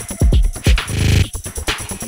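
Background electronic dance music with a steady kick-drum beat and a brief noisy swell near the middle.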